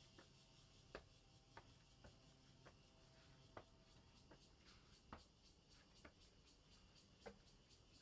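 Near silence with faint footsteps on stone steps: soft, sharp taps at walking pace, about one a second, over a faint steady high hiss.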